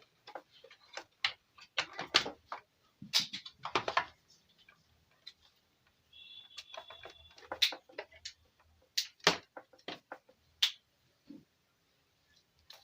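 Irregular clicks and knocks of a screwdriver and plastic parts as a board is screwed loosely back into a Yamaha keyboard's case, with a brief high squeak about six seconds in.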